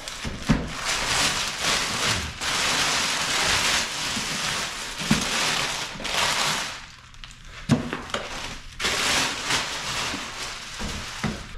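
Clear plastic wrap crinkling and rustling as it is pulled off a portable generator, with a few dull thumps.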